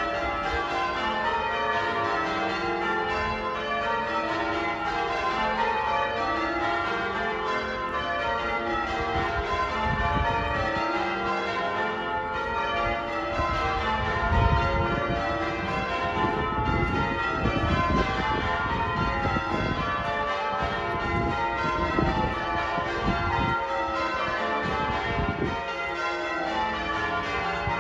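Wakefield Cathedral's church bells change ringing: a peal of bells struck one after another in fast, constantly shifting rows, at a steady level throughout. A low rumble comes and goes under the bells from about ten seconds in.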